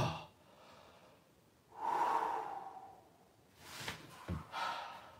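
A man breathing out heavily after an exercise set: a long, loud exhale about two seconds in, then a few shorter breaths and a brief knock near the end as he moves on the floor.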